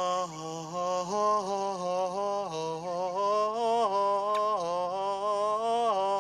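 A man chanting a sustained, wordless meditation tone, one voice held without a break, stepping up and down between a few pitches.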